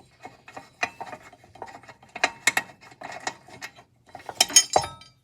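Metal parts of a miter saw being handled during disassembly: a run of small clinks and knocks, with a louder metal clatter near the end.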